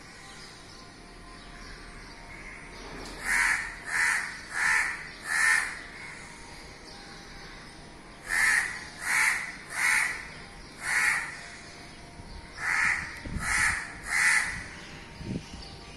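A crow cawing in three runs of short calls: four caws, then four more, then three, each caw about two-thirds of a second after the last.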